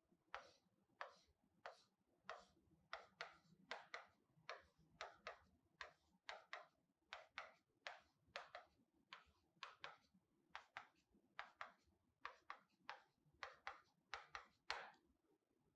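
Stylus tapping and clicking on an interactive smart-board screen while lines and letters are drawn: faint, sharp, irregular taps, about two or three a second.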